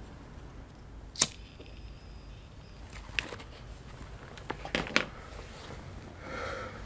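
A few sharp clicks and knocks, like small objects being handled or set down: the loudest about a second in, another near three seconds, and a quick cluster of them around five seconds.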